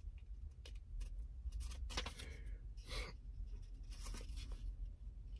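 Paper rustling and crinkling as a small folded eyeglasses warranty booklet is opened and handled, with scattered small clicks and scratchy strokes.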